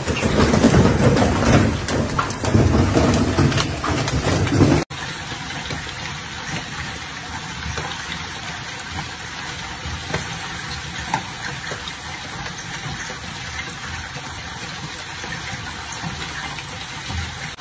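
Heavy hail and rain pelting down, loud and dense, with hailstones striking a pool enclosure and paving. About five seconds in it cuts to a quieter, steady hiss of hail and rain falling on a garden and street, with scattered sharper hailstone hits.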